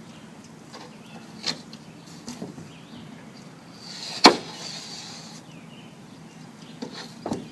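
A sheet of drywall being cut with a utility knife, with scattered light clicks and scraping and one sharp crack about four seconds in, followed by a brief hiss.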